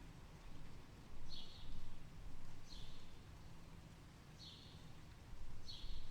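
A bird chirping repeatedly, a short high call about every second and a half, four times, over a steady low background rumble.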